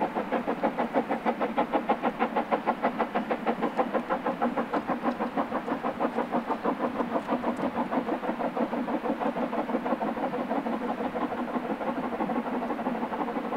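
Narrow-gauge steam locomotive working, its exhaust beating evenly at about four beats a second, the beats growing less distinct near the end.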